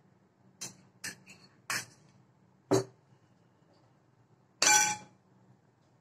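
Kitchen utensils knocking against a glass mixing bowl of whipped cream: four short sharp knocks, then one louder ringing clang of metal a little over four and a half seconds in.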